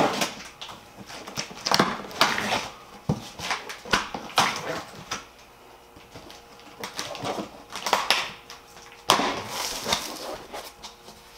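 A knife slitting the packing tape along the seams of a large cardboard box, heard as a series of short, irregular scraping rips. Near the end the cardboard flaps are pulled open.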